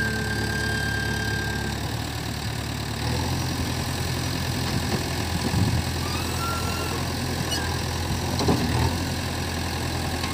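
JCB 3DX backhoe loader's four-cylinder diesel engine running steadily; about three seconds in its note changes and grows fuller as the front loader arm is worked by the hydraulics.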